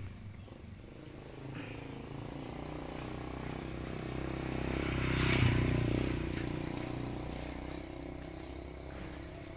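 A motor vehicle's engine passing by: it grows louder, is loudest about halfway through, then fades away.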